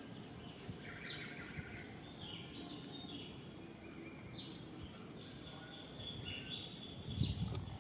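High chirping animal calls with two quick falling whistles, over a steady outdoor background hum; a few low thumps near the end.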